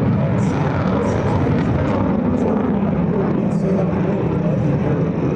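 F-35C Lightning II's F135 turbofan jet engine running steadily on the ground before takeoff, a constant low roar.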